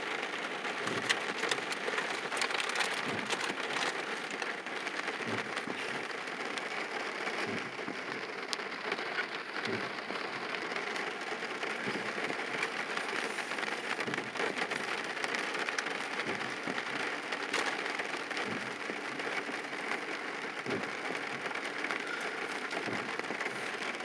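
Rain pattering on a car's roof and windshield, heard from inside the car: a steady hiss full of fine drop ticks, with soft low thumps about once a second.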